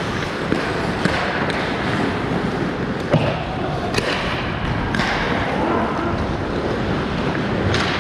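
Ice hockey play: skates scraping across the ice under a steady wash, with about five sharp clacks of sticks and puck scattered through it.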